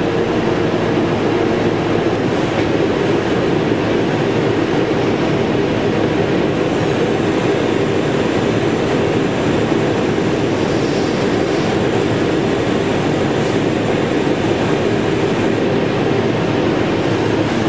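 Steady cleanroom air-handling noise, an even hiss and hum that does not change. A faint high whine joins about seven seconds in and stops a couple of seconds before the end.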